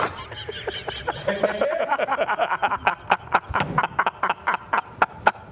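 A man laughing out loud. In the second half it breaks into a fast string of short ha-ha pulses, about five a second.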